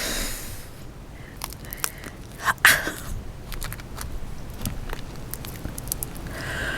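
Boiled crawfish being cracked and peeled by hand close to the microphone: scattered small shell clicks and crunches, with a louder burst about two and a half seconds in.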